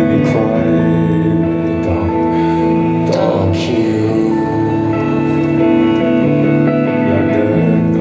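Live band playing, with sustained electric guitar chords and drums under a singer's voice.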